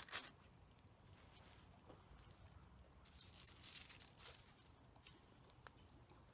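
Faint rustling and crackling of dry tinder and small twigs being handled and arranged by hand, with a few soft clicks and quiet gaps between.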